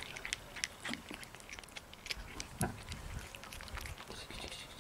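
Silver tabby cat chewing and licking snacks off a wooden table: a run of small, irregular wet clicks and smacks, with one louder knock a little past halfway.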